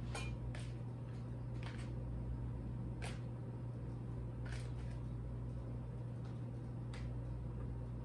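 Light, scattered clicks and taps, about six of them at irregular intervals, from mushrooms being prepped by hand, over a steady low hum.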